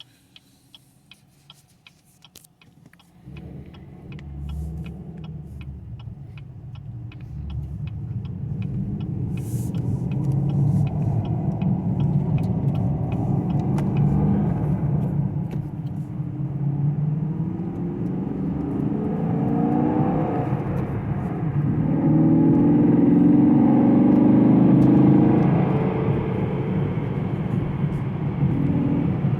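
2018 Chevrolet Camaro SS's 6.2-litre V8 pulling away and accelerating, its note rising through the gears, with tyre and road noise; it starts about three seconds in and is loudest near the end. A regular ticking runs under the first half.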